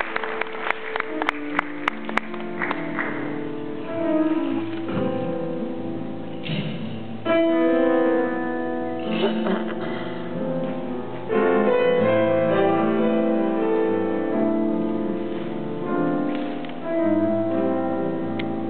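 Grand piano playing a solo introduction of sustained chords and melody in swelling phrases. The last scattered claps of applause die away in the first two seconds.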